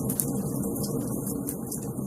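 Wood fire burning in a fireplace: a steady low rumble of the flames with frequent sharp crackles and pops.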